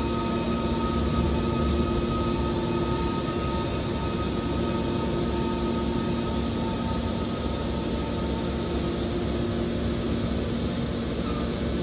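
Steady hum of running machinery, several constant tones over an even rushing noise, unchanging throughout.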